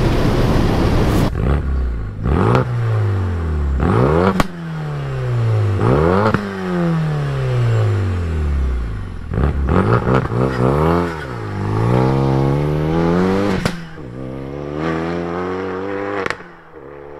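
Renault Megane RS Mk3's rebuilt, hybrid-turbo four-cylinder, running over 400 bhp, being driven hard: the engine note climbs and falls several times as it accelerates and lifts off, with a few sharp cracks along the way.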